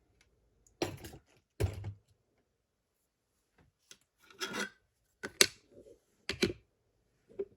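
A picked challenge lock and its tools being handled as the lock is taken apart for gutting: about five short metal scrapes and clicks, spaced out, with silence between them.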